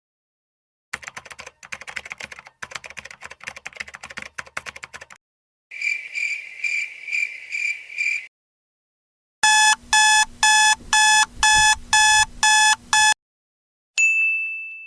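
A run of separate stock sound effects with short silences between them: about four seconds of irregular crackly clicking, then a fast-pulsing high ring for about two and a half seconds. Then a loud electronic alarm-clock beep repeats eight times, about two a second, and near the end a single bright ding fades away.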